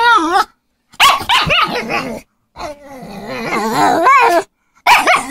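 Petit Brabançon dog vocalizing in four drawn-out, wavering, grumbling calls with short pauses between them: the dog scolding, showing displeasure at the cat lying in its place.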